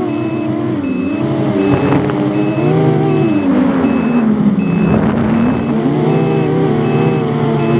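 Racing quadcopter's brushless motors (2206 2000 kV T-Motors spinning 6-inch bi-blade props) whining, the pitch rising and falling as the throttle changes. A steady train of short high beeps, about every three quarters of a second, runs alongside.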